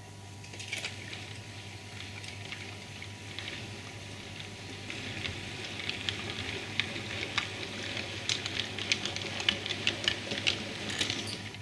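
Model railway train, a steam locomotive hauling a coach, rolling along the track toward the microphone: a hiss of wheels on rail with rapid irregular clicks over rail joints and pointwork, growing louder as it approaches and stopping abruptly near the end.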